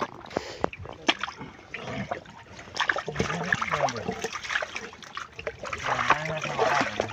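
Shallow muddy water splashing and sloshing as a steel bowl is dipped and swept through it, with many irregular small splashes.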